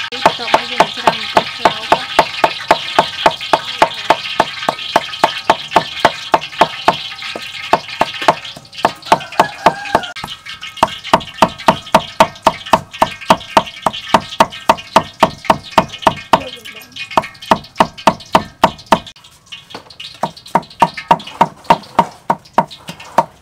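Cleaver chopping dried red chillies on a wooden chopping block: a steady run of sharp knocks, about three to four a second, with two short pauses in the second half.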